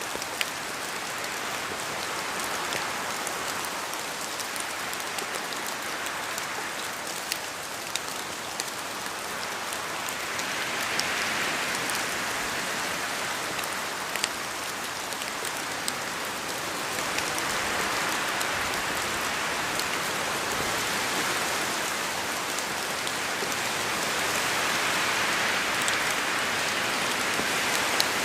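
Steady rain falling in a forest with wind, a constant hiss dotted with sharp drop ticks. It swells and eases a few times, growing louder toward the end.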